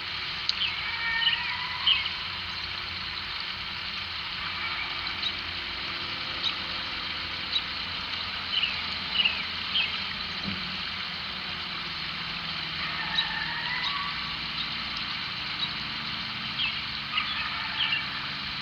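Distant coyote-like yips and short howling calls: quick high rising and falling cries come in scattered groups over a steady low background rumble.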